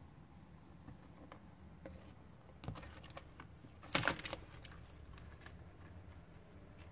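Faint scattered clicks and taps, with a quick cluster about four seconds in: a young water monitor's claws scrabbling on the hard surfaces of its enclosure.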